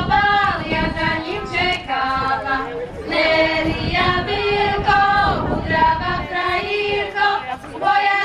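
A group of girls singing a folk song together, their high voices holding long notes.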